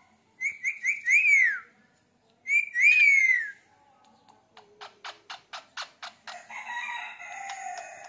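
Indian ringneck parakeet calling: twice, a few quick high notes and then a long screech that rises and falls. Then a softer run of rapid clicks, about five a second, running into quiet warbling chatter.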